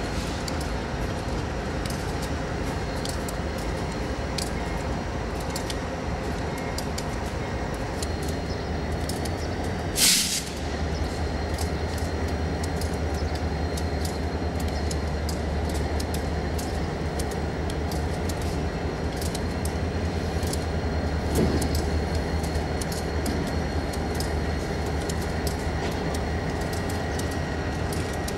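Diesel-electric locomotives running in a rail yard, a steady low engine rumble that grows deeper and stronger about ten seconds in, just after a brief loud burst of noise.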